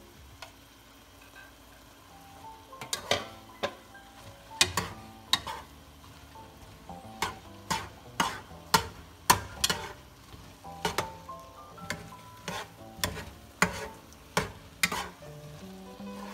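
A spoon stirring chopped leaves in a pot and knocking against its sides: sharp, irregular clicks about twice a second that start about three seconds in, with soft background music underneath.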